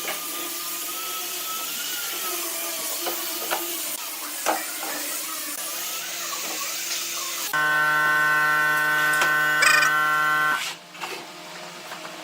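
Workshop tool noise on wood, with a few knocks, then a louder, steady machine hum for about three seconds that cuts off suddenly.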